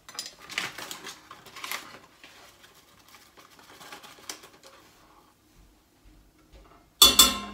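Paper flour bag rustling and crinkling, with a spoon scooping flour out of it, then a sharp clank that rings briefly near the end.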